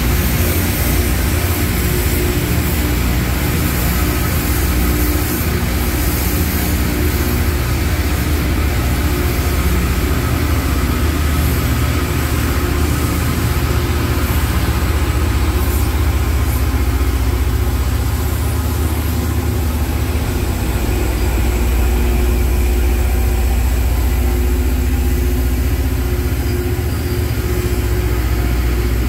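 Loram rail grinder train passing close by: a steady low diesel engine hum from its power units, mixed with the constant rolling noise of the cars on the rails.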